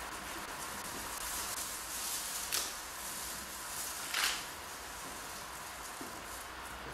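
Low steady hiss with two brief rustling swishes, about two and a half and four seconds in, from gloved hands handling hair.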